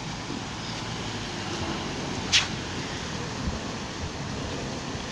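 Steady rush of water from a cascade fountain pouring over stone steps into a pool. A brief sharp high sound cuts through it a little past two seconds in.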